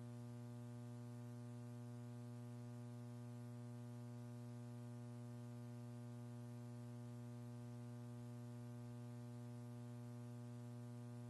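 Steady low electrical hum with a stack of even overtones above it, unchanging throughout: mains hum on the audio feed.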